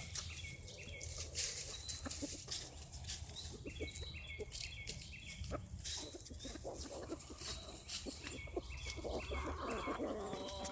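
Chickens clucking and calling, with several runs of short, high chirping notes.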